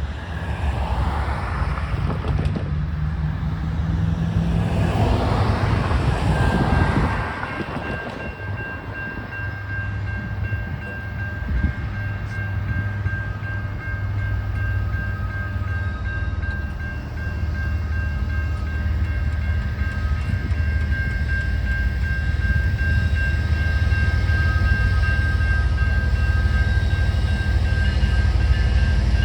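A train rumbling through a railroad grade crossing with a steady low rumble and wheel clatter. A steady high ringing tone, the crossing's Safetran Type 3 E electronic bell, joins about seven seconds in and keeps going.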